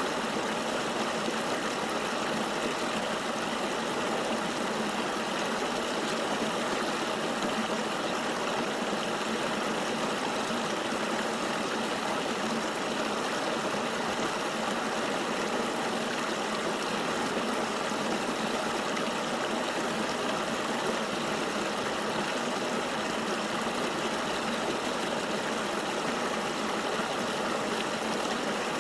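Flowing river water rushing steadily, an even unbroken hiss with little deep rumble.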